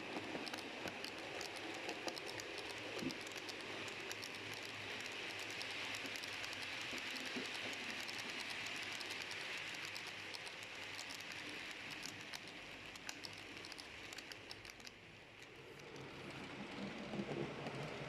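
H0-scale model train running along the layout track: a steady hiss with many scattered light clicks from the wheels on the rails. It briefly fades about 15 seconds in, then picks up again.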